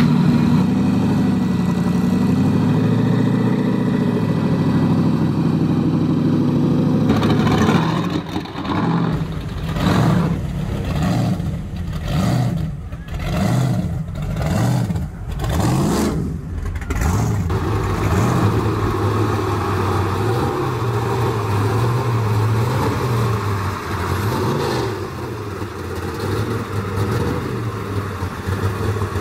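Supercharged muscle-car engines heard in turn. First a steady idle as a car rolls slowly, then about six revs rising and falling from about eight seconds in, then an uneven idle.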